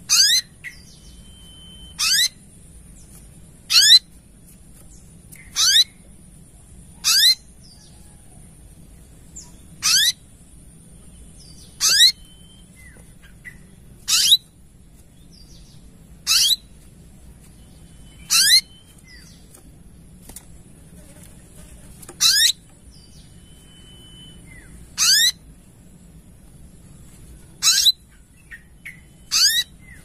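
Olive-backed sunbird calling: short, sharp notes that each sweep steeply down in pitch, about fourteen of them, one roughly every two seconds, over a faint steady high hiss.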